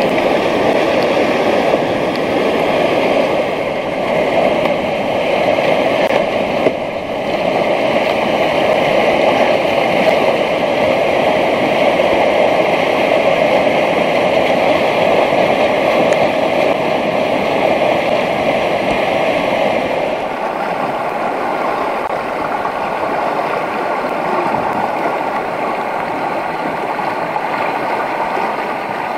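Whitewater rushing through a rocky river rapid: a loud, steady rushing noise that drops slightly in level about two-thirds of the way through.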